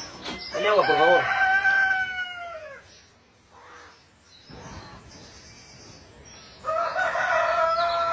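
A rooster crowing twice. Each crow starts with a few wavering notes, then holds one long note that drops away at the end. The second crow begins near the end.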